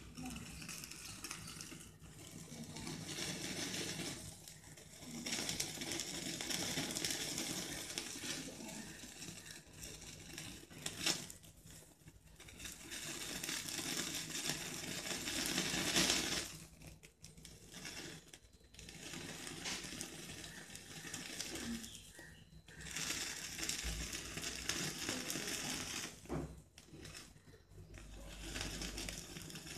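Yakitori skewer sizzling and crackling over the open flame of a gas ring burner, in swells of a few seconds with short breaks.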